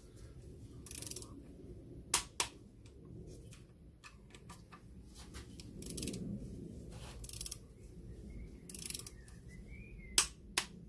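Torque wrench tightening cylinder-head bolts: short bursts of ratcheting and a few sharp clicks, the loudest about two seconds in and again near the end, the wrench clicking as each bolt reaches its set torque.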